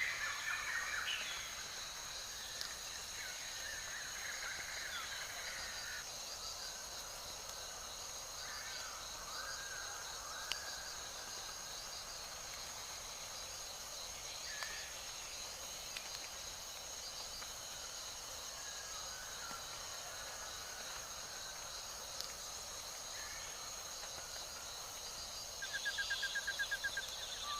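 Forest ambience: a steady high insect drone with scattered bird chirps, and a rapid trilling call about two seconds before the end.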